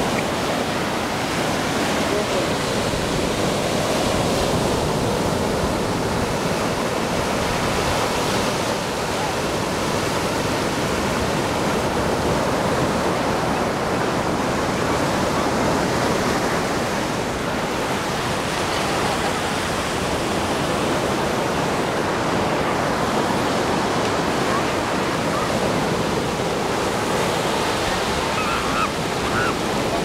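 Ocean surf: a steady wash of breaking waves.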